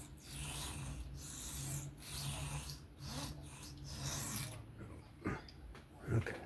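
Steel knife blade drawn across an Atoma 400 diamond sharpening plate during freehand sharpening, about four scraping strokes before the strokes stop. Two short low thuds follow near the end, the second the loudest.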